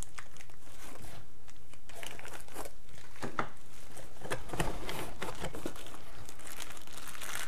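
Plastic bags and packing material crinkling and rustling in the hands as accessories are unwrapped and lifted out of a cardboard box, with scattered light crackles.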